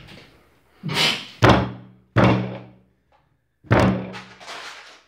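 Four heavy thuds of a person hopping and landing hard on the floor, the first two close together about a second in and the last near four seconds, each dying away with a short low boom.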